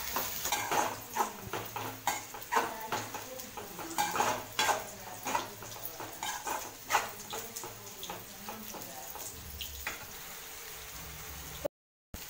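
A spoon scraping and knocking against a metal kadai while vegetables are stirred in it. The clatter comes in irregular strokes and thins out after about seven seconds.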